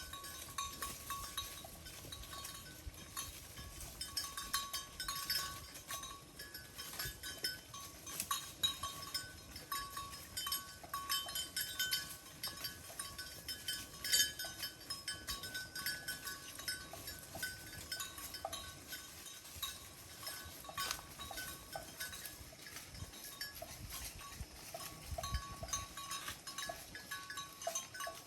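Cowbells on grazing cattle clinking irregularly, with a few bells of different pitch ringing on and off.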